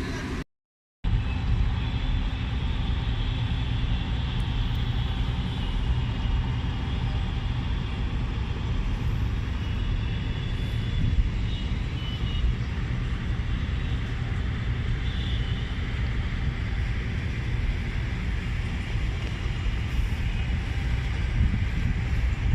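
Steady low rumble of outdoor background noise, with a brief dropout to silence about half a second in.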